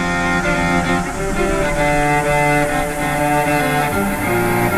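Background music: an instrumental stretch of a song, with long held notes.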